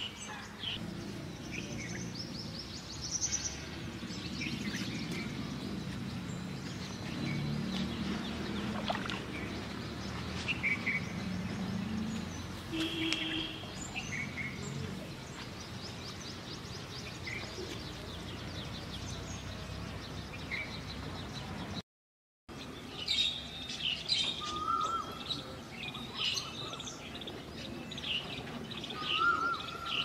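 Wild birds chirping and calling with short high notes, over a low rumble during the first half. The sound cuts out completely for a moment about three quarters of the way through, then the chirping comes back busier, with short rising whistled calls.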